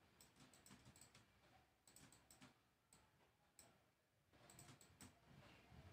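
Near silence with faint computer-mouse clicks in a few small clusters.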